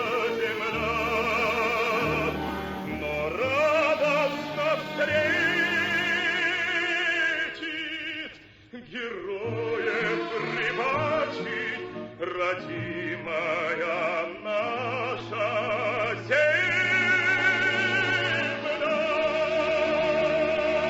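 Music: a song with a singer holding long notes with strong vibrato over a steady bass line.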